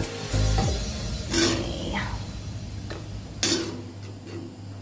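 A steel spoon scraping fried potato filling out of a black kadai into a stainless-steel bowl, with a few sharp clinks of metal on metal.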